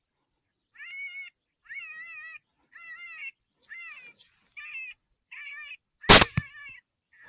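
A predator call repeating a high, wavering, meow-like distress cry about once a second, seven times in a row, then a single loud rifle shot about six seconds in, followed closely by a fainter crack.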